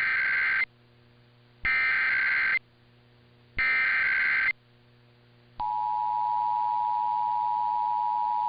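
Emergency Alert System header: three short bursts of SAME data tones about a second apart, then from about five and a half seconds in the steady two-tone EAS attention signal, marking the start of a Required Monthly Test.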